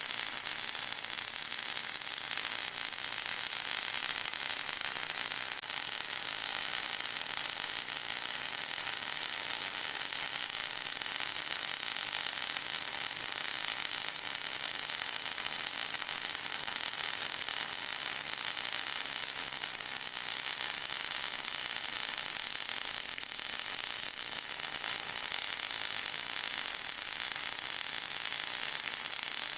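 Steady synthetic white-noise hiss with a fine grainy crackle. It sits mostly in the high range with little bass and holds unchanged throughout, the kind of masking noise used against tinnitus.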